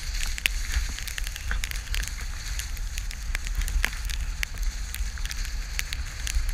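Skis scraping and chattering over snow, with many scattered crackling clicks, over a steady low rumble of wind on the GoPro's microphone.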